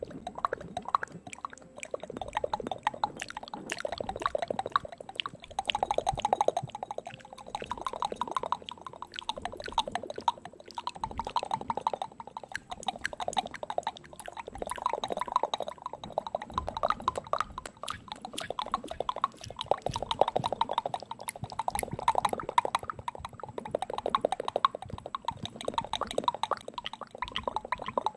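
Wet ASMR mouth sounds made close into the microphone with a hand cupped over the mouth: a dense, continuous stream of small wet clicks and smacks that swells and eases every couple of seconds.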